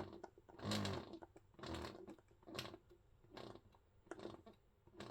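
Medela Swing electric breast pump running, its small motor cycling the suction in short rhythmic pulses a little under once a second, the later pulses fainter.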